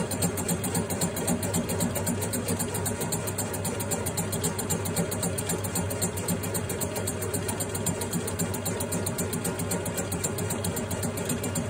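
Metal lathe turning a Simson moped's finned aluminium cylinder while the tool faces its base flat, to restore the base seal against air leaks. The machine runs steadily, with a fast, even ticking.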